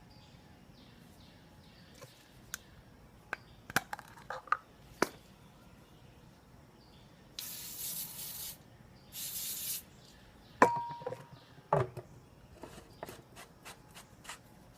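Two hissing sprays of about a second each from an aerosol can of Static Guard, used as the accelerant for a potato cannon, amid light clicks and two sharper knocks of handling the cannon.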